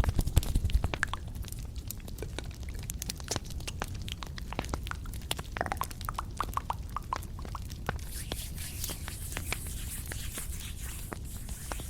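Close-miked ASMR trigger sounds: a run of soft clicks and taps, some with a short pitched ring, with a brushing hiss joining in the last few seconds.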